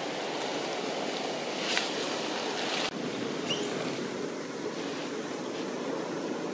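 Steady low rushing background noise, with a brief louder hiss around two seconds in and a short high chirp about three and a half seconds in.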